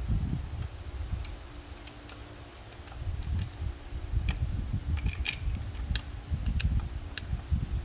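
Scattered light metal clicks and clinks of 12mm bolts and transmission parts being handled, over low rumbling handling noise and a faint steady hum.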